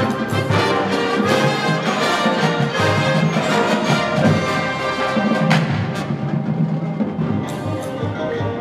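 Marching band playing live: a brass section with trumpets and trombones over front-ensemble percussion including timpani.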